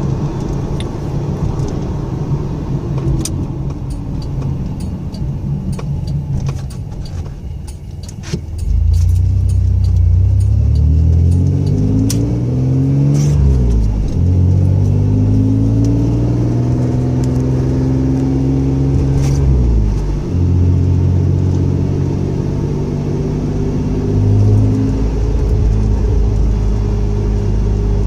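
1997 Camaro's 3.8-litre V6 driving on the road. For the first third there is only rumble and a few light rattles; then the engine gets louder under acceleration, its pitch climbing and dropping sharply twice as the T5 manual gearbox is shifted up, before settling into a steady cruise.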